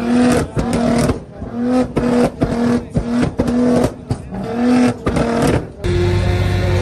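Widebody Nissan GT-R's twin-turbo V6 being revved in a string of about eight short, sharp blips, with exhaust pops and cracks between them as it spits flame. Near the end the sound cuts abruptly to a steady low engine drone.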